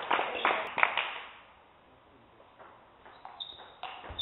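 Scattered clapping dies away in the first second. After a short hush, a table tennis ball clicks sharply off the bats and table in a new rally, with a harder knock near the end.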